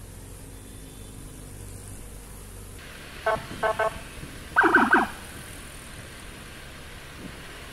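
Vehicle horn giving three short toots, then a longer, louder blast about a second later, over steady engine and road noise.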